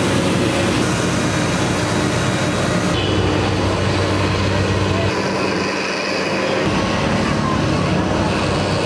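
Compact street-sweeper vehicle running, its engine humming steadily while its rotating side brushes scrub the road with a hiss. About three seconds in the hiss drops away, leaving a duller steady street background.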